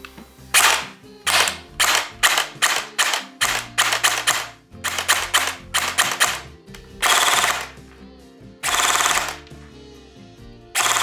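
Specna Arms AR-15 LVOA-C (SA-E16) airsoft electric gun, with its version 2 gearbox, firing shots through a chronograph. About fourteen single shots come in quick succession over the first six seconds, then three short full-automatic bursts of under a second each. Background music plays under the shots.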